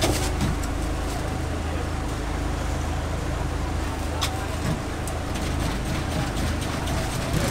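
Busy stall ambience: a steady low machine hum with background voices, and a couple of sharp clicks of cups and utensils being handled, the clearest about four seconds in.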